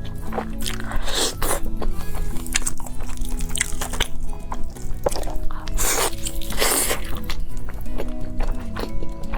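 Background music with loud crunching bites and chewing of crisp fried food, several big crunches standing out over the steady music.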